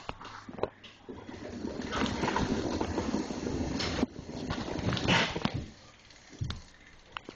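Rear freewheel of a Mongoose Program BMX bike (13-tooth freewheel) ratcheting in rapid clicks as the rear wheel spins freely, in two long runs.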